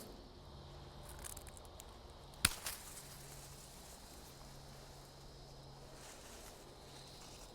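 Insects trilling faintly and steadily outdoors, under a low steady hum, with one sharp click about two and a half seconds in.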